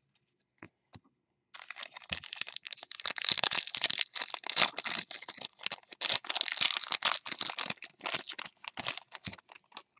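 Foil trading-card pack wrapper crinkling as it is torn open and handled, with cards slid out of it. Starts about a second and a half in and goes on as a dense, crackly rustle.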